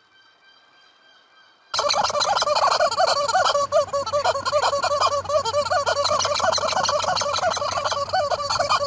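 A flock of domestic fowl calling all at once, a loud, dense chorus of rapid warbling cries. It starts abruptly about two seconds in, after only a faint thin tone.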